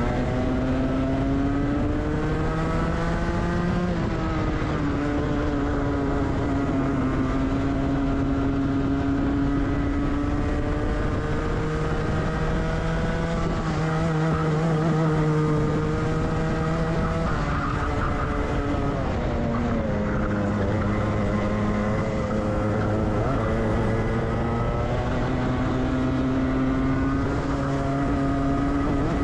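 Rotax 125 cc two-stroke kart engine running at racing speed, heard onboard. Its pitch climbs over the first few seconds, drops sharply about four seconds in, dips again a little before twenty seconds, then climbs steadily towards the end.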